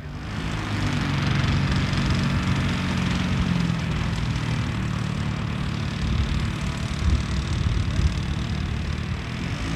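Engine of a large-scale RC model towplane running steadily on the ground, a low drone with a hiss above it, as it waits to take a glider on tow. A couple of brief low bumps come near the end.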